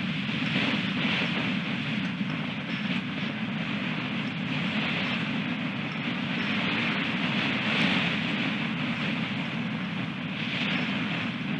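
Strong wind buffeting the nest camera's microphone, a steady rushing noise that swells in gusts about every three to four seconds.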